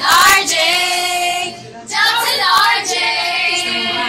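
A song with a voice singing, with a short break about one and a half seconds in before the singing picks up again.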